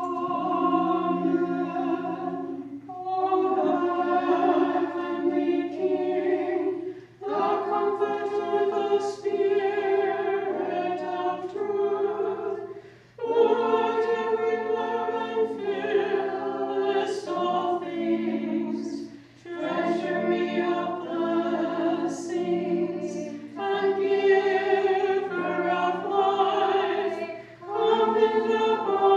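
Unaccompanied choir singing Orthodox liturgical chant, held notes in phrases of a few seconds with brief pauses for breath between them.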